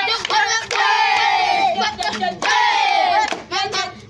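A group of children chanting and shouting together in short phrases about a second long, each falling in pitch, with handclaps between the phrases.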